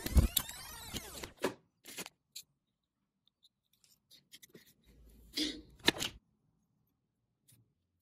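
A punch-down insertion tool clicking and scraping as it seats wires into the insulation-displacement contacts of a CAT6 junction box. It is followed by scattered small clicks, and by a brief rustle and sharp clicks of hand tools working the cable about two-thirds of the way through.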